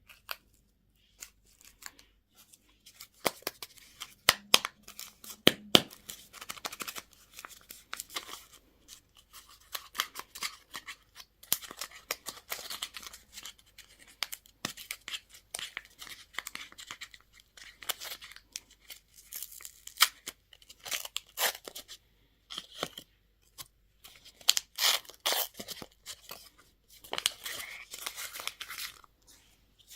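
Plastic candy and toy packaging being torn open and crinkled by hand, in irregular bursts of crackling broken by sharp clicks and snaps.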